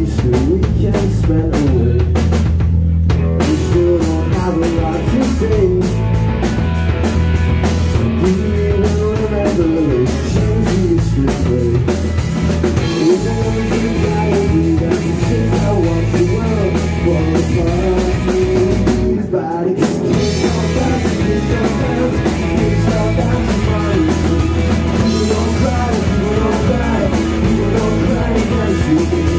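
Rock band playing live: drum kit, heavy bass and electric guitars, with a voice singing over them. The cymbals and high end drop out briefly about nineteen seconds in while the bass carries on.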